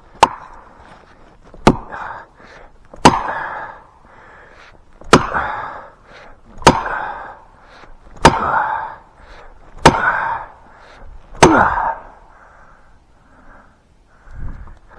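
Sharp, loud blows, about eight struck roughly every second and a half, each with a brief ring, as a hammer or axe head knocks at a piece stuck down in the felling cut to free it.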